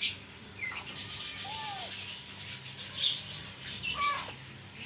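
Birds chirping and calling: a quick run of high chirps, a few harsh calls that fall in pitch, and one short whistled note.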